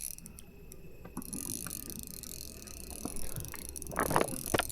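Fishing reel being cranked, its gears making a light ticking whir, with a couple of louder, short clatters near the end.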